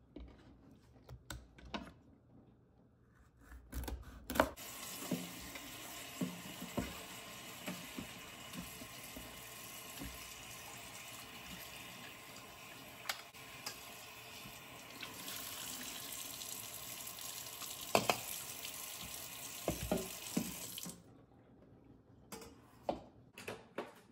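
Kitchen tap turned on about four seconds in, water running into a stainless steel bowl as hands rinse in it, then shut off near the end. Short knocks of the bowl and utensils come before and after the running water.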